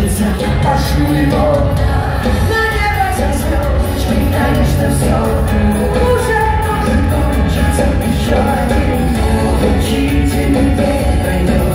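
Live pop band playing, with drums, guitar and keyboards, and a woman singing lead through the PA, heard loud and steady in a large hall.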